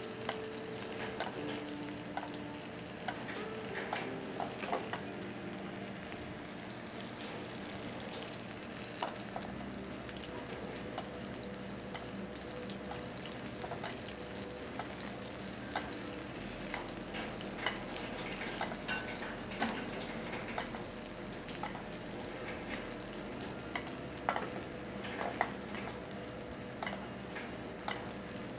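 Corvina fillet frying in foaming butter in a tilted pan, a steady sizzle, with scattered light clicks of the utensil against the pan as the hot butter is basted over the fish.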